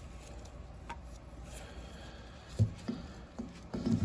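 Engine parts being handled: a few short, light knocks in the second half, over a low steady hum.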